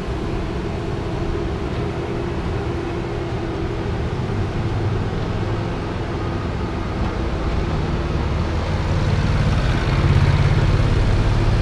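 Steady low engine hum that grows louder near the end as a John Deere Gator utility vehicle drives close past.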